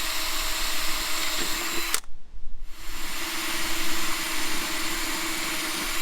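Cordless drill boring a pilot hole for a new screw in the slide mechanism's plate. It runs steadily, stops sharply about two seconds in, then starts again a moment later and runs on.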